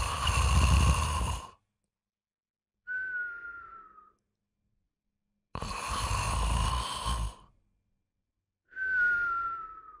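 A man snoring: a loud, rattling snore followed by a softer breath with a whistle that falls slightly in pitch, heard twice in a slow, even rhythm.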